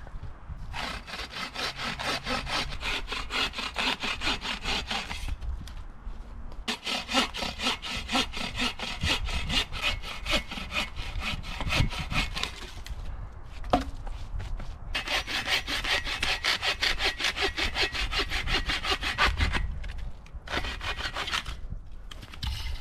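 Hand saw cutting through wood in fast back-and-forth strokes, in four bouts with short pauses between them.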